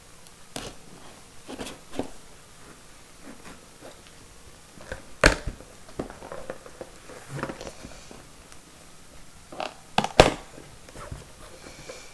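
Knife slicing through packing tape on a cardboard box, with scattered scrapes and sharp taps of the cardboard; the two sharpest knocks come about five seconds in and about ten seconds in.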